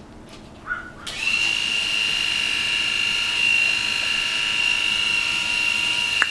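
A small electric motor starts about a second in, winding up briefly and then running with a steady, high-pitched whine.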